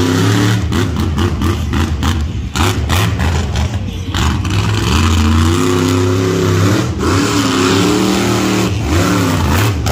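Monster truck engine revving hard, its pitch climbing and falling again and again as the truck is driven over the dirt, holding high revs for a stretch about five seconds in.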